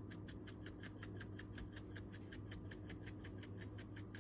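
Dried dill weed being shaken out of a spice shaker: a faint, rapid, even rattle of about six shakes a second that stops at the end, over a steady low hum.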